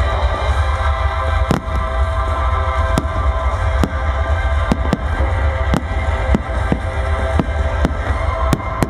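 Fireworks display: a string of sharp bangs from bursting shells, roughly one or two a second, over loud music.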